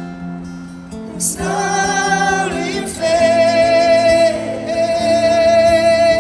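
Live music: acoustic guitar with wordless singing, which swells about a second in and settles into one long high note held from about halfway through.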